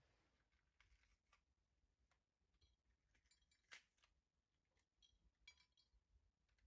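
Near silence with a few faint clicks and light clinks of small hard objects, the sharpest a little past halfway.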